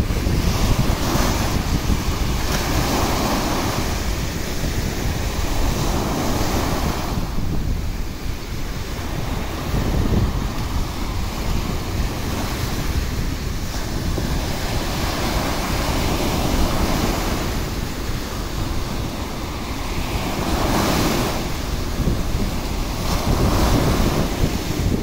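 Small surf breaking and washing up a sandy beach, the wash swelling and easing every few seconds, with wind buffeting the microphone in a steady low rumble.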